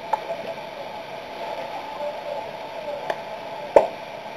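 Ambient sound of an amateur baseball game: a steady background of faint, distant players' voices with a few sharp clicks, the loudest a little before the end.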